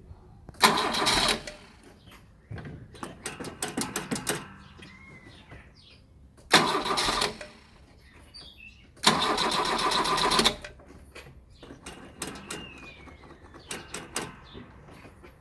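Starter motor cranking the cold carburettor four-cylinder petrol engine of a 1987 Dacia 1310 after two days standing. It comes in several short cranking attempts of about a second each, with rapid uneven pulses between them.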